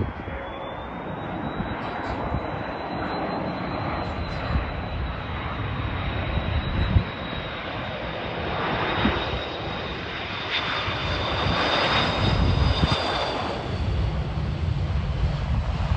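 Airbus A330-300 airliner on final approach, its jet engines giving a steady high whine over a broad rumble, growing louder in the second half as it comes close to touchdown.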